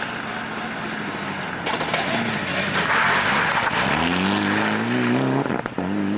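Mitsubishi Lancer Evolution VIII rally car's turbocharged four-cylinder engine coming into a hairpin with some crackles. There is a hiss of tyres and loose grit as it slides through the corner. From about four seconds in the engine revs rise hard as it accelerates away, with a short break for a gearshift near the end before rising again.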